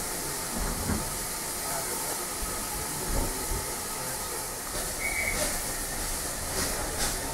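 Steam railmotor on the move: a steady hiss of steam over a low running rumble. From about five seconds in, short beats come through the hiss, and a brief high squeal sounds near the five-second mark.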